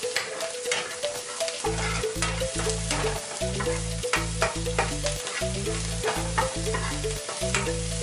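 Chopped onion sizzling in a frying pan, stirred with a utensil that scrapes and taps against the pan over and over. Background music with a stepping bass line comes in about one and a half seconds in.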